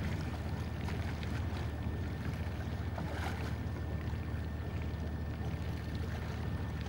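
Steady low rumble of an idling boat engine, with a couple of faint splashes from the water.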